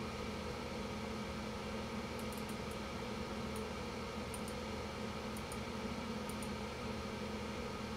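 Steady hum and hiss of a computer's cooling fan, with faint paired mouse clicks several times from about two seconds in.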